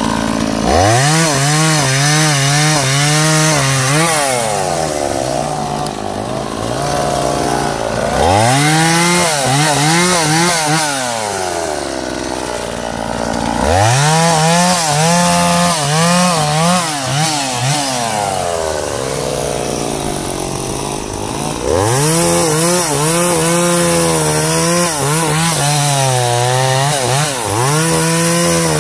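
Two-stroke chainsaw cutting teak logs. The engine goes to full throttle in four long bursts, its pitch wavering as the chain bites into the wood, and drops back to idle between cuts.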